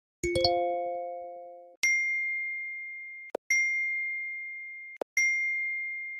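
Phone notification alerts: first a chime of several tones together, then three identical high single-tone dings about a second and a half apart. Each ding rings out and fades, with a short click just before the second and third.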